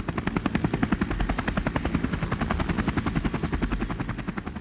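Helicopter rotor blades chopping in a fast, even beat with a thin high whine above it, fading away near the end.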